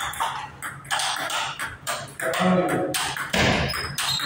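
Table tennis ball clicking off the paddles and the table in a serve and a short rally, several sharp ticks over a steady low hum.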